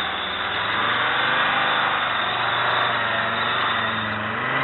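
UAZ-469 off-roader's engine running under load as the vehicle drives over loose sand and dirt, its revs rising near the end as it starts up a steep mound.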